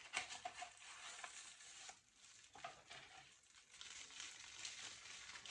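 Faint rustling and crinkling of packaging being opened by hand, with a few soft clicks.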